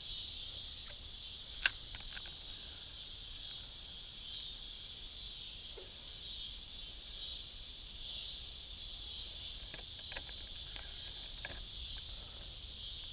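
A steady, high-pitched chorus of insects fills the background, with one sharp click about two seconds in and a few faint ticks later on.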